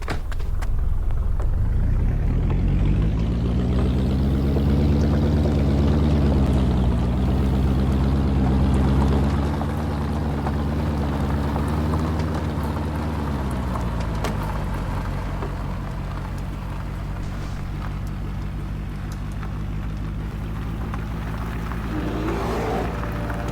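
A motor vehicle engine picks up speed, its pitch rising, dipping once, rising again, then falling away to a steady lower running sound. A brief wavering tone comes in near the end.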